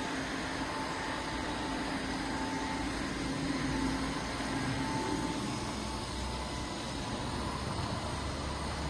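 Steady machinery noise: an even hum and hiss with a low rumble and a faint tone that comes and goes.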